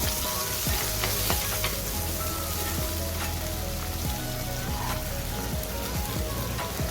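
Chopped onion and curry leaves sizzling steadily in hot oil in a pan, with a few light clicks here and there.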